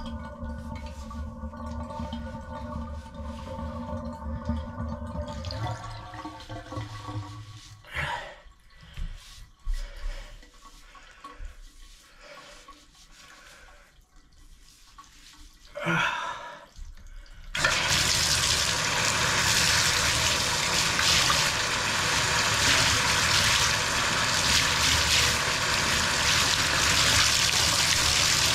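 A few light knocks and rubs, then about two-thirds of the way in a Moen Posi-Temp tub/shower valve is opened and water starts rushing out in a steady, loud stream.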